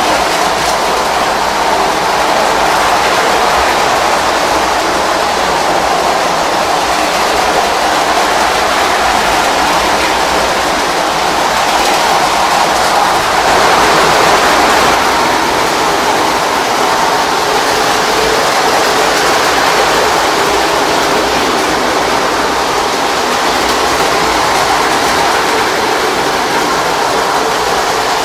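Several postwar Lionel O-gauge trains, Alco F-A2 diesels among them, running at once on tubular three-rail track. Electric motors whir and wheels rumble on metal rail in a steady, loud din that swells briefly about halfway through.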